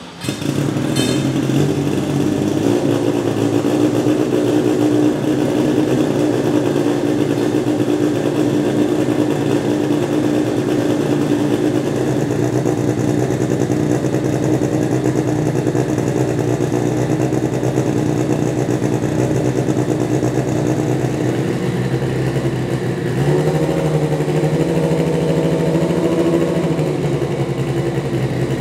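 Turbocharged BMW S14B20 2.0-litre four-cylinder in a BMW E36 race car idling steadily during warm-up, heard from its side-exit exhaust. About three-quarters of the way through, the revs rise for a few seconds, then settle back to idle.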